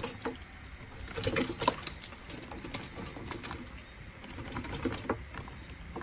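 Water dribbling and splashing with scattered small wet taps as a catch of live freshwater fish is tipped out of a container.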